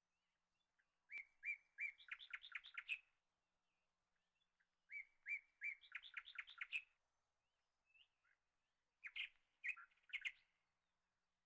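A songbird singing three short phrases: each opens with a few clear, evenly spaced notes and runs into a quick trill.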